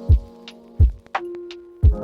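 Background music: a deep, thudding beat about every three-quarters of a second under held synth-like notes.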